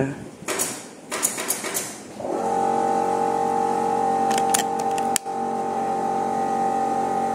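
A steady mechanical hum starts about two seconds in and holds, with a few sharp clicks just past the middle.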